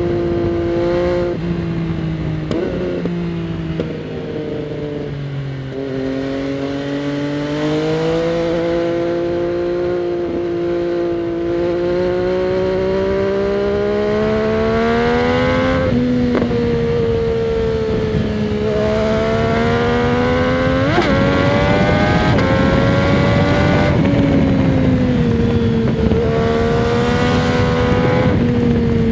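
2022 MV Agusta Dragster 800 RR's three-cylinder engine running through a Fresco Trio Corse exhaust fitted with its dB killer, heard from the rider's seat while riding. The engine note falls over the first few seconds, then climbs slowly for about ten seconds, and rises and dips repeatedly in the second half with throttle and gear changes.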